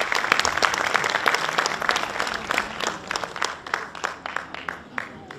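Audience applauding, dense clapping that thins out to scattered claps near the end.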